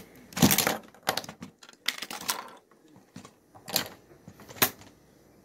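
Plastic Lego bricks clacking as a homemade Lego rocket model comes apart: a handful of sharp clacks spread over about four seconds, the loudest about half a second in.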